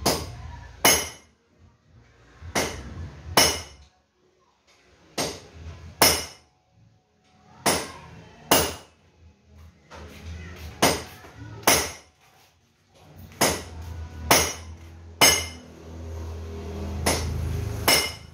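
Hammer blows on metal, struck in pairs a little under a second apart, a pair every two to three seconds, over a low hum.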